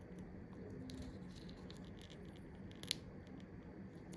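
Faint scattered clicks and scratches of small hand tools working on an iPhone XR while its dried battery adhesive strip is pulled, with one sharper click about three seconds in.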